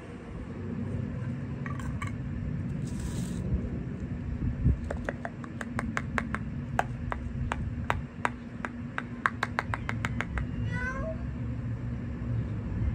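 A cat meows once, a short wavering call near the end, over a steady low rumble. Before it comes a run of quick, evenly spaced clicks, about four a second, lasting several seconds.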